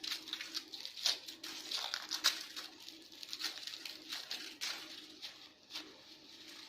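Aluminium foil wrapping being crinkled and torn open by hand in quick, irregular strokes, over a faint low steady hum.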